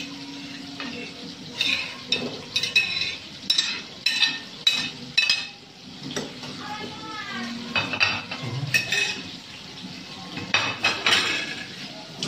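Stainless steel bowl clinking and scraping against a metal cooking pot as squash slices are tipped in: repeated sharp, ringing metal clinks in three clusters, over a low steady simmer.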